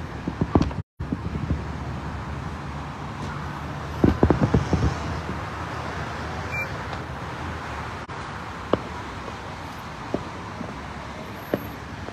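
Steady road traffic noise from cars on a jammed highway, with two short clusters of low thumps, about a second in and again about four seconds in.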